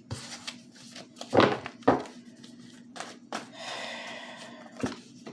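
Tarot cards being handled and drawn: several light taps as cards are flipped and laid down, with a brief rustle of cards sliding about halfway through.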